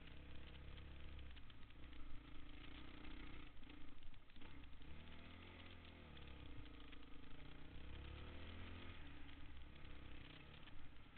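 Honda dirt bike engine running as the bike rides a dirt trail. The engine pitch drops and climbs again with the throttle a few seconds in and once more near the end, with scattered knocks from the rough ground.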